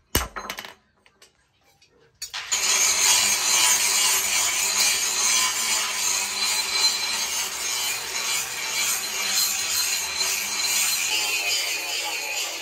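Coal forge with air blown through the fire: a steady hissing rush that starts about two seconds in, as the axe head heats to an orange glow in the coals.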